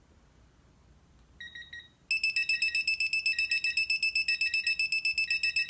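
Electronic beeper of a digital torque wrench being pulled to an 80 ft-lb setting. A short, quieter tone sounds about a second and a half in. Then comes rapid, high-pitched beeping at about ten beeps a second, the signal that the set torque has been reached or exceeded.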